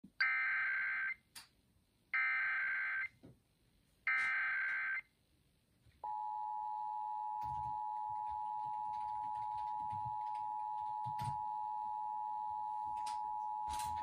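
Emergency Alert System monthly test heard through a RadioShack alert radio's speaker: three bursts of the SAME header's warbling data tones, each about a second long with a second's gap, then the steady two-tone EAS attention signal starting about six seconds in.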